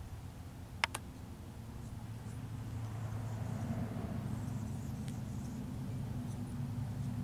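Low, steady engine hum of a motor vehicle, growing louder from about three seconds in. Two sharp clicks sound about a second in.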